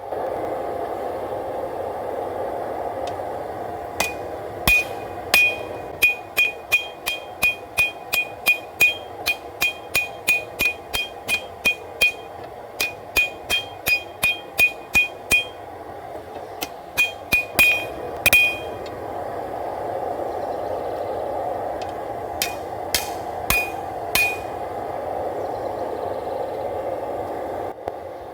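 Hand hammer striking a hot W-2 steel knife blade on an anvil, about two ringing blows a second for some twelve seconds, then a short burst of blows and four last strikes, as the blade's bevel is forged and its curve worked straight. A steady rushing noise from the forge runs underneath.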